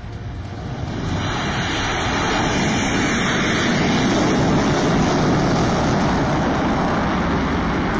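B-1B Lancer bomber's four afterburning turbofan engines at full power on takeoff: loud, steady jet engine noise that swells over the first second and then holds.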